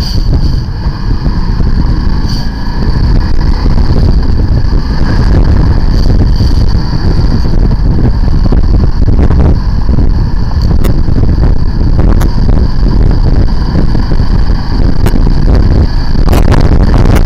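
Motorcycle pulling away from a standstill and riding up to motorway speed, its engine under heavy wind rumble on the handlebar-mounted camera's microphone. The noise grows over the first few seconds, then stays loud and steady.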